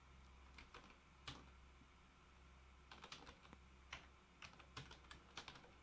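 Faint keystrokes on a computer keyboard as a few words are typed: scattered single clicks at first, then quicker runs of clicks in the second half.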